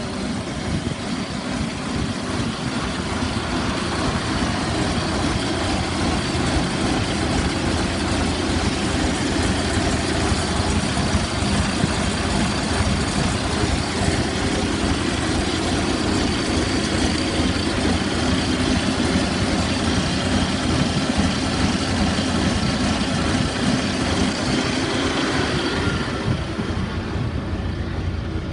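An IVECO Magirus Turbo Star 190-48's Fiat AIFO 17.2-litre twin-turbo V8 diesel idling steadily, a deep, even engine sound heard close to the exhaust. Near the end the sound turns muffled and duller, heard from inside the cab.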